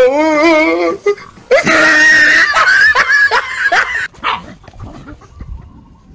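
A dog barking and growling as it fights a stuffed toy tiger pushed at it on a stick. It is loud for about the first four seconds, then dies down.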